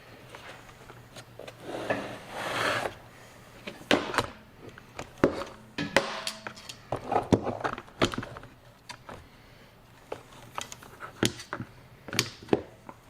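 Irregular knocks, clicks and rattles as a new battery is handled and set into a jump box's case, with a longer scraping sound about two seconds in.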